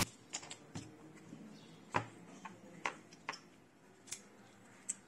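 Light, irregular clicks and taps of an aluminium precision screwdriver handle and its metal bits being handled in a plastic tool case with a foam tray, about eight in all, the sharpest about two seconds in.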